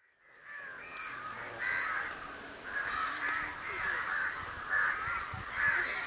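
Birds calling over and over, several calls overlapping, above a steady outdoor hiss that fades in just after the start.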